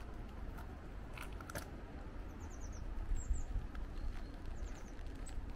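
A small bird calling in two short runs of about four quick, high, falling chirps, over a steady low rumble of wind on the microphone and a few light ticks.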